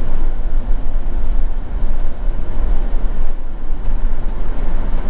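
Motorhome driving slowly, heard from inside the cab: a steady low rumble of engine and road noise.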